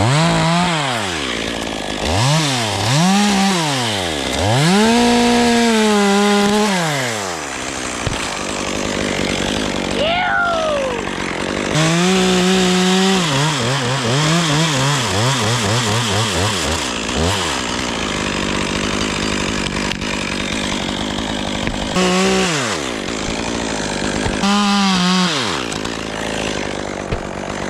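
Two-stroke chainsaw revving up and down repeatedly and cutting wood. Its pitch sags during a longer cut about halfway through.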